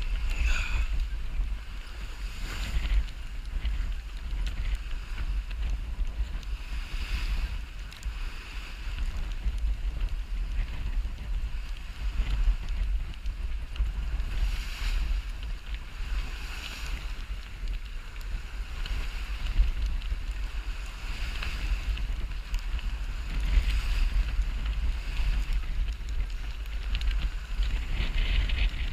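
Wind buffeting the microphone on a sailboat under way, with water rushing and splashing past the hull in swells every couple of seconds.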